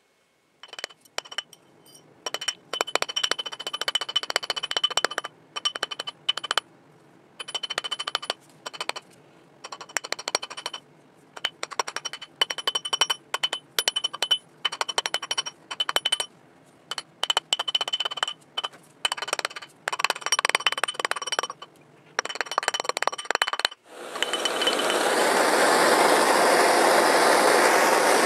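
Small metal piece tapped rapidly with a hammer in short bursts, each burst ringing on a high note. About 24 s in, a gas torch is lit and burns with a loud, steady hiss.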